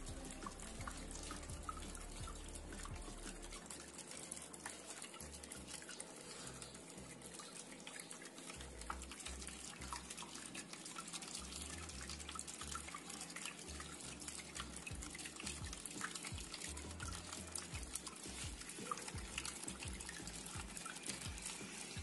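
Water trickling and splashing steadily down a homemade cement waterfall fountain, with many small drips and splashes.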